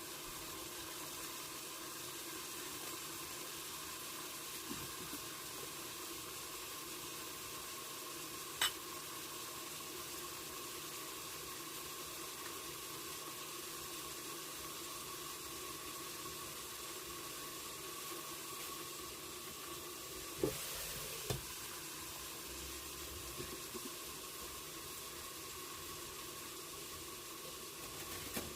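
Food sizzling steadily in a covered stir-fry pan over the heat. There is one sharp click about a third of the way through and two quick knocks about two-thirds of the way through.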